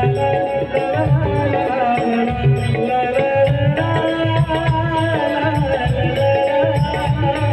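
Instrumental interlude of a Marathi wedding song: a held melody over a steady hand-drum beat.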